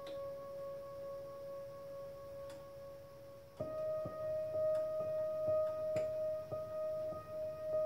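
Access Virus TI2 synthesizer holding one steady drone note that slowly fades. About halfway through it changes to a slightly higher held note, with a regular short tick pulsing about twice a second.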